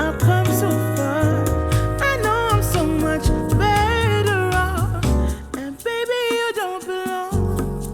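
A soul-pop song with a gliding lead melody over bass and drums, played back through open-back studio headphones and picked up by microphones. The bass and drums drop out for about two seconds near the end, then return.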